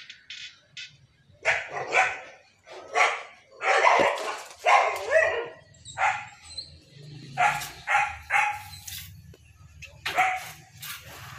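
A dog barking repeatedly in short barks, some in quick pairs, over a faint low hum.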